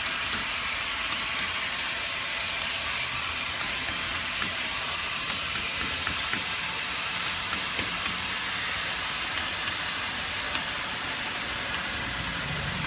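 A steady hissing noise that holds an even level throughout.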